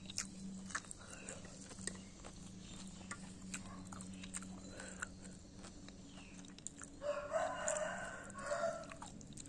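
A rooster crowing once, about seven seconds in, for roughly two seconds, over a steady low hum and scattered small clicks.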